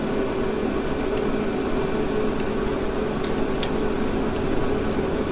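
Steady background hiss with a low, even hum, like room tone from a microphone, and a couple of faint ticks about three seconds in.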